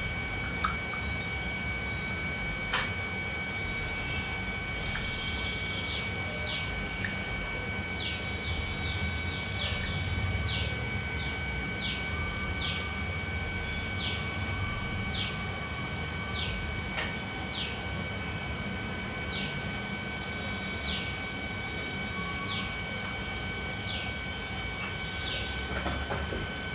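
A small bird repeats short, high, downward-sliding chirps about once a second over a steady low rumble of an open wood fire and boiling clay pots. Two sharp knocks come in the first few seconds.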